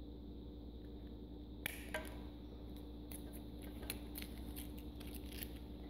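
Faint clicks and taps of small plastic toys being handled on a glass tabletop, with a sharper click about two seconds in and light ticks after, over a low steady hum.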